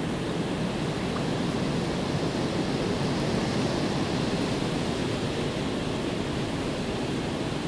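Steady rushing noise, even throughout, with no distinct sounds standing out.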